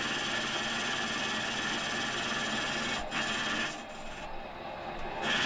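Small metal lathe running, its tool turning down the outside of a model-engine cylinder held in a four-jaw chuck: a steady machining whine and hiss. There is a click about three seconds in, and the hiss thins out for about a second and a half before coming back.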